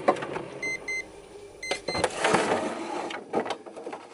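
Freezer drawer opened and frozen food boxes rummaged: a knock at the start, then cardboard and plastic packaging rustling and scraping. Two pairs of short high electronic beeps come about a second in.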